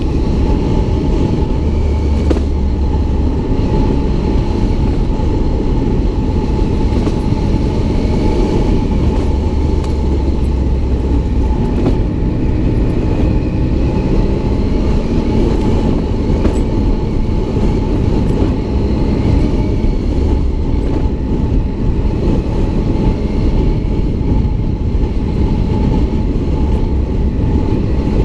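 Adventure motorcycle riding along at a steady pace: the engine runs steadily under a constant whine, with heavy wind rumble on the microphone that gusts louder a couple of times.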